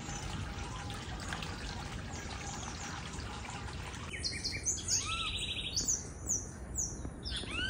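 Water trickling from a stone sphere garden fountain, with birds chirping faintly over it. About four seconds in the water sound falls away and a run of louder bird calls follows: quick whistled notes falling in pitch and a short buzzy trill.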